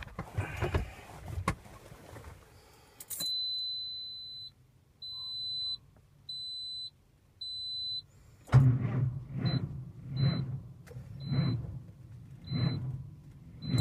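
Handling rustle and knocks, then a truck's dashboard warning chime beeping, one long tone and then short beeps about once a second. About two-thirds of the way in, the starter cranks the engine slowly in heavy, laboured heaves about once a second while the chime keeps beeping, the engine not catching: the truck that won't start.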